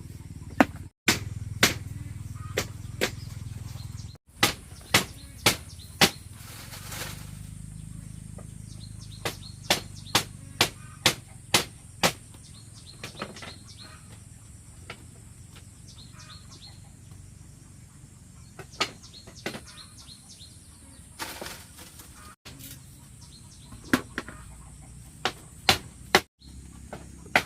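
Repeated sharp strikes of a hand tool on wood during floor building, in runs of several blows about half a second apart, with pauses between the runs.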